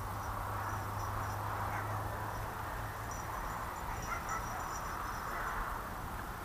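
Riverbank outdoor ambience: a steady low hum and a noisy background, with faint high-pitched chirps coming in short repeated runs.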